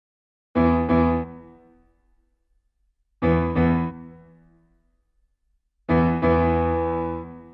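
Piano outro music: three sustained chords, each struck as a quick double hit and left to ring and fade, spaced about two and a half seconds apart.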